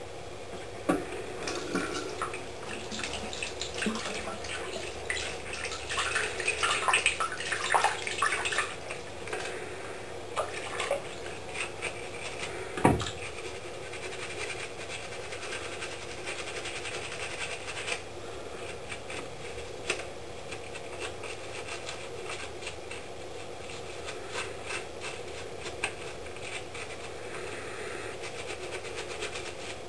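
Tap water running into a sink while a toothbrush scrubs softened paint off a small plastic miniature, the bristles scraping in busy spells, with one sharp knock about 13 seconds in.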